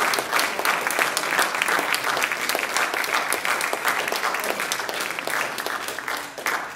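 Audience applauding: many hands clapping in a dense patter, thinning out near the end.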